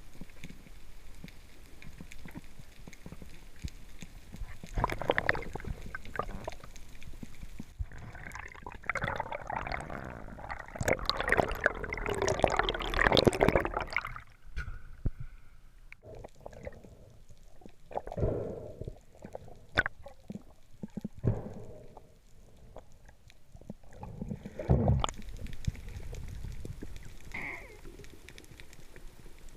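Underwater gurgling and bubbling water, loudest in a dense stretch from about eight to fourteen seconds in, with a few sharp low knocks.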